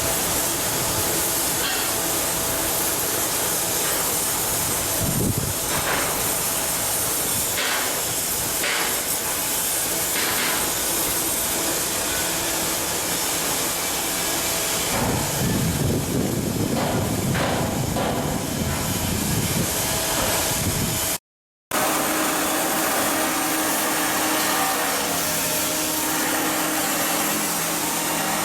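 Shipbuilding work noise: a steady, loud hiss of machinery with a few brief knocks and a heavier rumble of work through the middle. The sound cuts out for a moment about two-thirds of the way in, then resumes.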